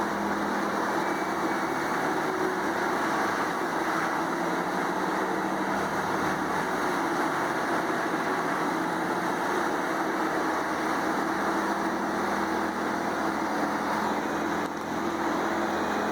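Large wood chipper's engine running steadily, a constant mechanical hum with no clear chipping impacts.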